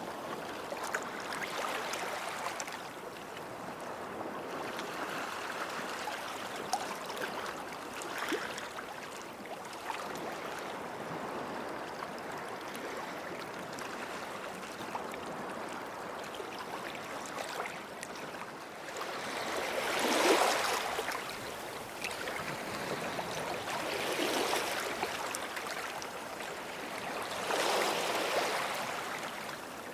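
Small waves washing in at the water's edge of a sandy beach: a steady hiss of water, with three louder breaking washes in the second half, about four seconds apart.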